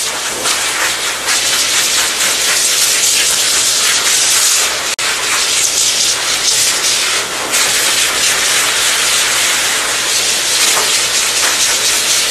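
A groomer's high-velocity dog dryer blowing air through its hose into a dog's coat: a loud, steady rushing hiss.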